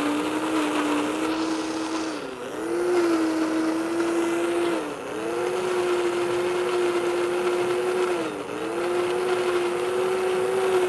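Industrial blender motor running at high speed, puréeing a thick, chunky mix of soaked pecans, maple syrup and water. Its steady pitch dips briefly three times, about two, five and eight and a half seconds in, then recovers.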